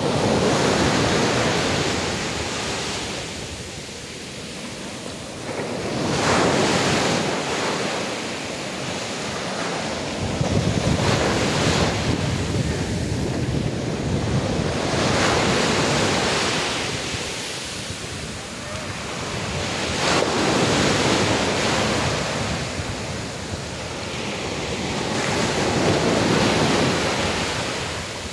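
Small waves breaking at the shoreline and washing up over sand, the surf swelling and easing about every five seconds.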